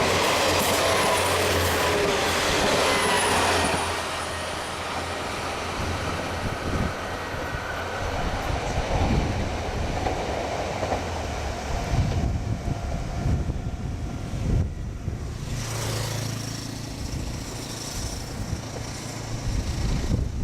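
A train passing close by on the line through a level crossing. For the first few seconds its wheels squeal over a steady low hum. After that it goes quieter, with a run of uneven clacks from the wheels on the rails.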